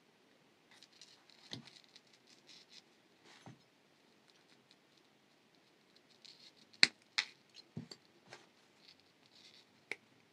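Small metallic clicks and light scratching of jewelry pliers handling fine wire and a chain link. About seven seconds in comes a sharp double click as flush cutters snip the wire.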